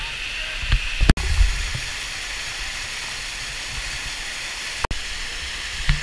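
Waterfall pouring into a pool close by: a steady rushing hiss, with a few low knocks about a second in. The sound drops out for an instant twice.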